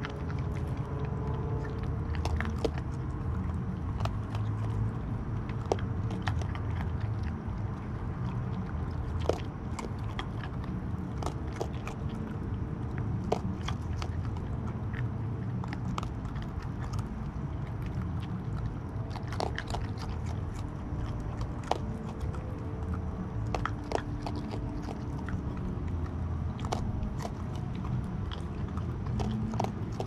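Raccoons eating dry pet-food kibble close to the microphone: a steady run of sharp, irregular crunches and clicks as the pellets are bitten and chewed, over a constant low rumble.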